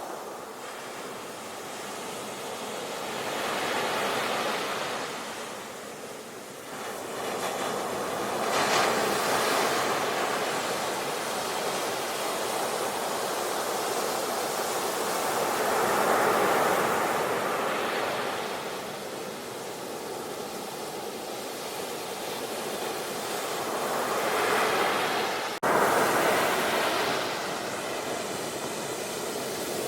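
Sea waves washing on the shore, the surf swelling and falling back every several seconds. There is a brief abrupt break near the end.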